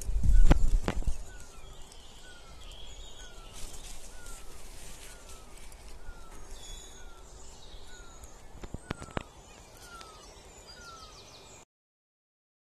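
Outdoor birdsong: one bird repeats a short falling note about every half second while other birds chirp higher. A few loud low thumps sound in the first second, and the sound cuts off suddenly near the end.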